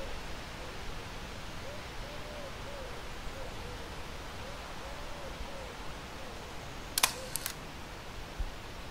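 A Leica M8.2 rangefinder's shutter firing about seven seconds in: one sharp click, then two quicker clicks right after. Soft, low, hooting bird calls repeat in short phrases against a steady outdoor hiss.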